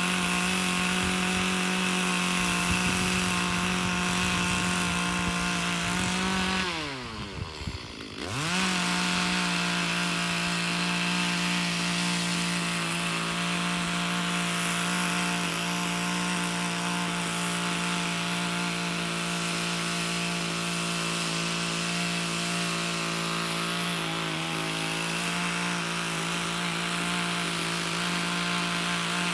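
Two-stroke chainsaw running at high revs as it cuts through green logs. About seven seconds in the engine drops quickly toward idle and revs straight back up to a steady full-throttle pitch.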